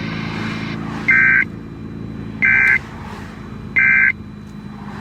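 NOAA Weather Radio's EAS end-of-message data code: three short, identical bursts of two-tone digital data about 1.3 seconds apart, over a steady low hum. They signal the end of the alert broadcast.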